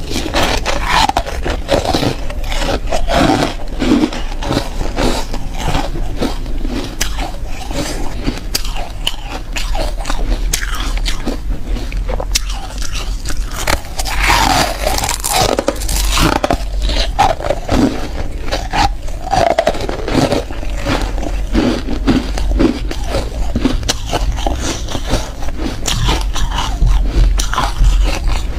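Frost-coated refrozen ice being bitten and chewed in the mouth, a continuous run of sharp crunches and crackles picked up close by a clip-on microphone.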